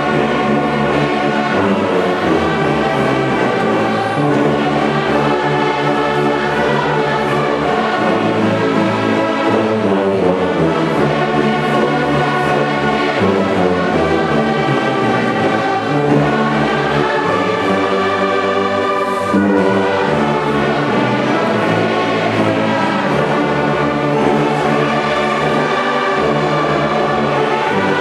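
Large church orchestra with brass, including a nearby tuba, playing a slow hymn in sustained, changing chords.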